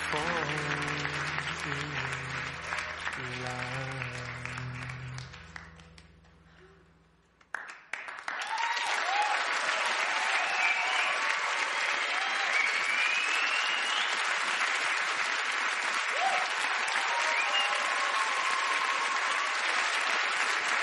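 The music's last held notes fade away over about seven seconds to near silence, then a large theatre audience starts applauding, with cheering and whistles over the clapping, and keeps on.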